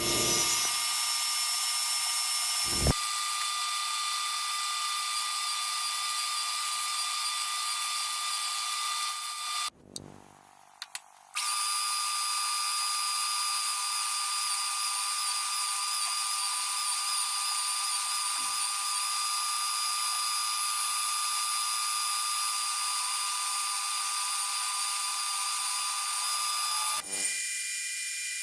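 Metal lathe running while machining brass: a steady, high machine whine with several fixed tones, in separate stretches that break off near 3 s, drop out briefly around 10 seconds in, and change near the end.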